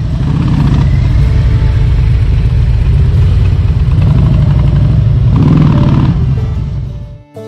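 Motorcycle engine running loud through its exhaust pipes, swelling louder near the end before stopping abruptly.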